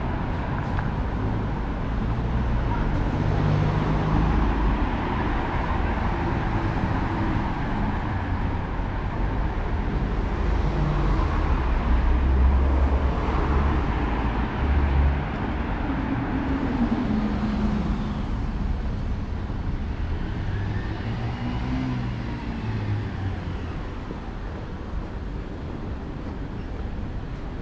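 City street traffic: cars and buses running and passing, a steady low rumble over a noisy hiss. It grows louder about halfway through and eases off near the end.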